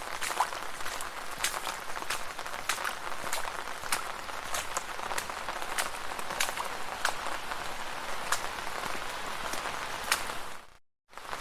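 Rain falling on a street: a steady hiss of rain with many sharp individual drop splashes. The sound cuts out suddenly for a fraction of a second near the end, then resumes.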